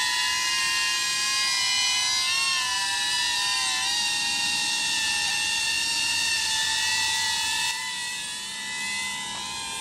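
DJI Avata cinewhoop drone's ducted propellers whining in flight, the pitch wavering up and down as the motors change speed. It turns somewhat quieter near the end.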